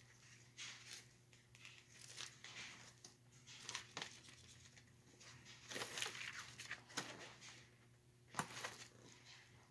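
Faint paper rustling and crinkling in a series of short strokes as a paperback book is handled and its pages riffled, with one sharper snap near the end.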